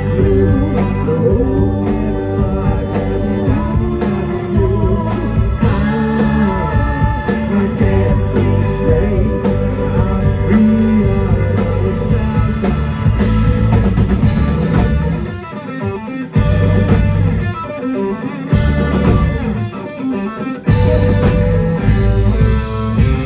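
Live rock band playing electric guitars, bass and drums, with singing. The band cuts out briefly twice in the second half, like stop-time breaks.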